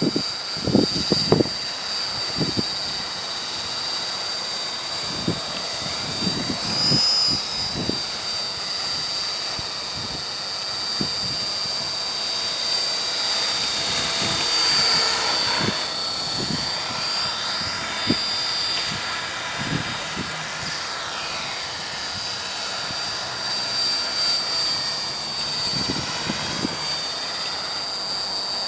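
Belt-CP electric RC helicopter in flight, its motor and rotor making a steady high-pitched whine that slides up and down in pitch a few times as it swings past, around the middle. Gusts of wind thump on the microphone.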